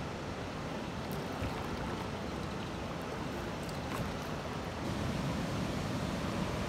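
Steady wind noise on the microphone over lapping lake water, with a few faint knocks.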